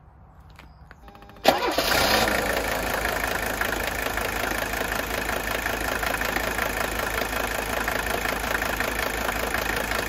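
Mercedes-Benz 300D five-cylinder OM617 diesel cranking briefly and catching about a second and a half in, then idling with the knock of injector nailing. On straight diesel fuel this knock is the normal sound of this engine.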